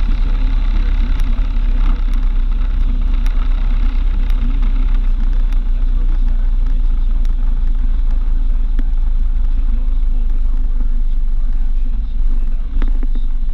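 A car cruising along a highway, heard as a steady, loud rumble of road and wind noise with the engine underneath.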